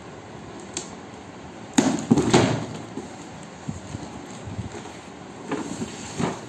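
Large cardboard box being handled on a hard floor: a cluster of knocks and scraping about two seconds in as the box is laid down flat, then softer knocks and rustling near the end as it is turned over.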